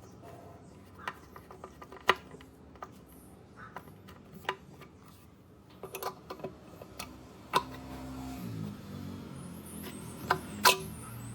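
Metal hand tools and small parts clicking and clinking as pliers are handled, in scattered sharp taps with short pauses between them, the loudest about two seconds in, near the middle and near the end.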